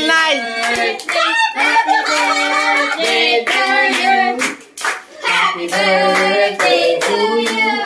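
A group of people cheering and calling out in high, drawn-out voices, with hand clapping throughout.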